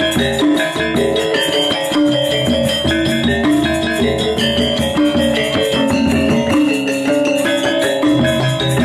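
Instrumental music with held, ringing pitched notes over a quick, steady beat.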